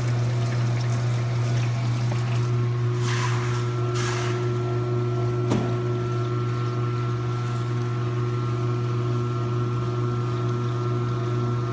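Speed Queen commercial top-load washer running and working up toward full spin speed: a steady low motor hum with water sounds. Two brief swishes come about three and four seconds in, and a sharp click about halfway through.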